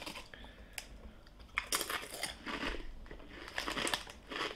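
Ruffles Double Crunch hot wing potato crisps crunching as they are bitten and chewed: a few separate sharp crunches, then denser chewing in the second half.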